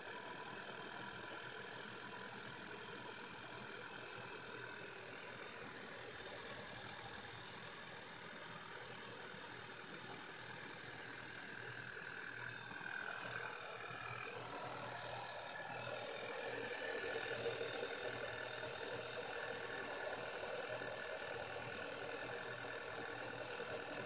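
Volkswagen 2.0 TSI turbocharged direct-injection four-cylinder idling fast and rough just after a cold start, with a cold-start misfire that the mechanic suspects comes from carbon build-up on the intake valves. About two-thirds of the way in, a loud high hiss rises over the engine sound.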